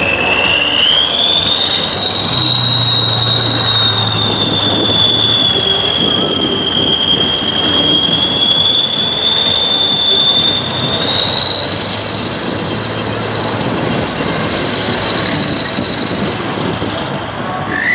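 Kirovets K-700-series articulated tractor's turbocharged diesel engine working hard, with a loud, high-pitched turbo whistle over the engine's rumble. The whistle climbs in pitch about a second in, holds nearly steady, and edges a little higher again about eleven seconds in.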